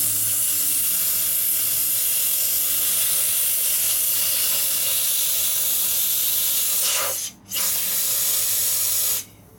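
Compressed air hissing from a shop air line blown into the vents of a portable 12 V tire inflator. The air cuts off briefly about seven seconds in, comes back, and stops a little after nine seconds in.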